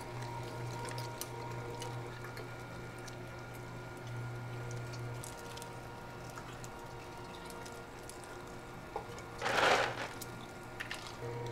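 Steady machine hum of kitchen equipment with scattered light clicks and handling sounds, broken about nine and a half seconds in by a short loud hiss or splash.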